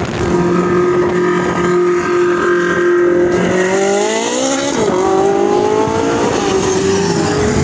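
Racing car engine running in the pit lane at a steady pitch, its revs rising about three seconds in and then holding level at the higher pitch.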